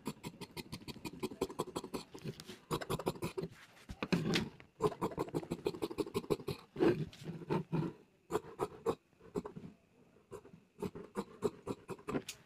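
Tailor's scissors cutting through blouse cloth in quick repeated snips, several a second, with a short pause about ten seconds in.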